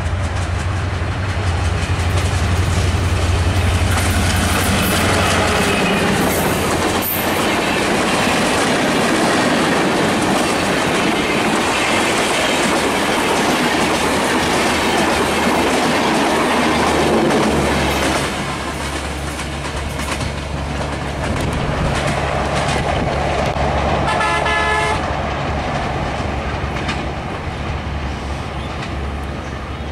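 Diesel-hauled passenger train passing at speed: the locomotive's engine runs loud and low at first, then the coaches' wheels rumble and clatter over the rails for a long stretch. The noise eases after about 18 seconds as the train draws away, and a short horn blast sounds near the end.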